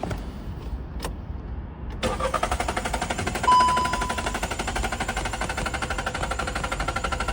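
Car's starter motor cranking the engine in a fast, even rhythm without it catching, starting about two seconds in after a single click. A short electronic beep sounds about a second later. The no-start is traced to an intake air temperature sensor clogged with oil sludge.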